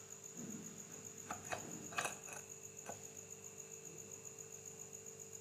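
A few light clicks and taps of metal ceiling-fan parts being handled and fitted together, the sharpest about two seconds in, over a steady high, evenly pulsing chirp and a low hum.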